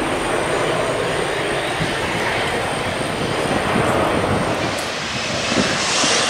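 Jet airliner's engines at takeoff power as it lifts off and climbs away, a steady rumble and hiss heard from a distance. Near the end the sound turns brighter and hissier.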